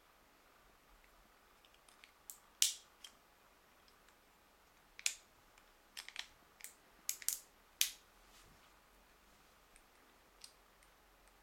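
Sharp plastic and metal clicks and snaps from a Shimano Chronarch 51E baitcasting reel being handled as its side plate is released and taken off. About a dozen single clicks, mostly bunched in the middle, with a couple of faint ones near the end.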